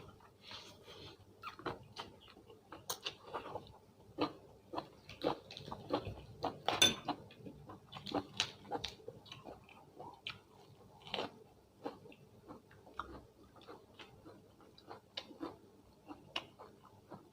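Close-up sounds of a person chewing and eating: irregular wet mouth smacks and clicks, a few a second, loudest about seven seconds in.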